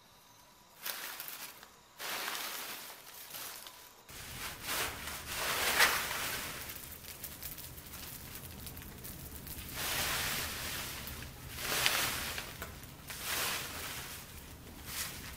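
Dry leaves and sticks rustling as the heap is lit, then the heap burning as a bonfire, crackling steadily, with a rake scraping and rustling the debris into the flames. The sound swells in louder surges every few seconds.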